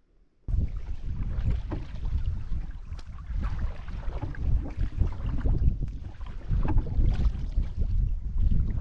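Wind rumbling on the microphone during a canoe paddle on a lake, with water splashing around the canoe. It starts about half a second in.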